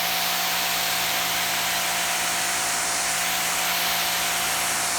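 Electric pressure washer of about 1,750 PSI running steadily and spraying water: a constant hiss of the jet over a steady motor hum, starting right at the beginning.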